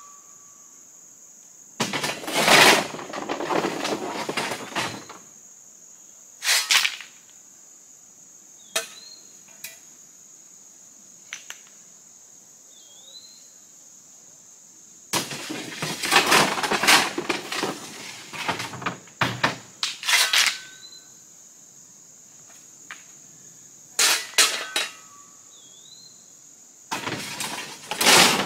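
Loose rock being shoveled off a pickup's tailgate: a shovel scraping the bed and stones clattering down onto the ground, in several bursts of a few seconds each, the longest about halfway through. A steady high insect drone runs underneath.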